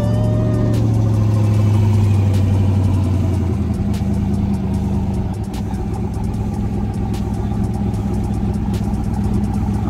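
Twin-turbo 5.3-litre LS V8 in a Fox body Mustang idling just after start-up. A strong steady fast-idle note settles to a lower, rougher idle about four seconds in.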